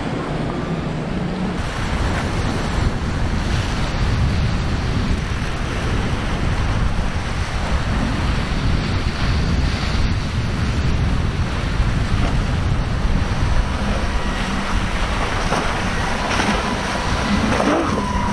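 Wind buffeting the microphone over crashing surf and churning water, with the outboard engines of boats running through the rough inlet underneath.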